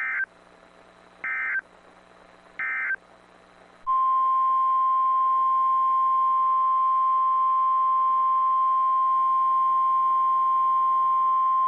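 NOAA Weather Radio alert signal: three short bursts of SAME digital header data about a second apart, then about four seconds in the steady 1050 Hz warning alarm tone, which signals that a warning is about to be broadcast.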